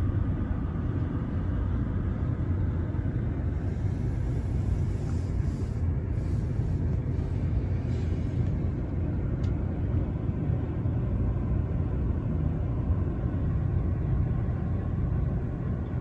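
Blizzard wind buffeting the microphone: a steady low rumble with a haze of blowing noise above it.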